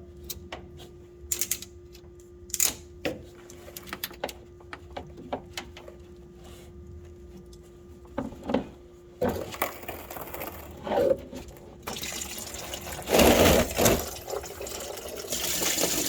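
Sharp metal clicks and knocks of hose clamp pliers working a spring hose clamp off a coolant hose. About nine seconds in, antifreeze starts to pour out of the loosened hose and runs steadily, with a brief louder gush a few seconds later.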